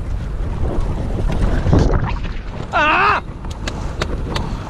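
Wind buffeting the microphone aboard a small fishing boat, a steady low rumble. About three seconds in comes a short, wavering, pitched call, followed by a few sharp clicks.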